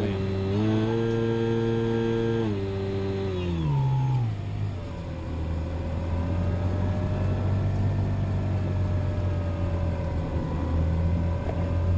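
RC airplane motor and propeller running with a steady pitched hum. About three seconds in the pitch slides down as the throttle is eased back, and it then drones low, with a fainter tone wavering slowly above it.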